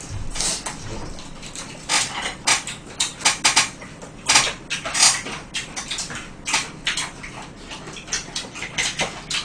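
People chewing and biting into fried chicken: irregular crisp crunches and wet mouth smacks, several a second, with a light clack of chopsticks.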